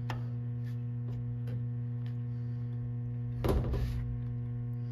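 Steady electrical mains hum, with a few light clicks and one short knock about three and a half seconds in as a bicycle disc brake caliper is handled against its mounting tab.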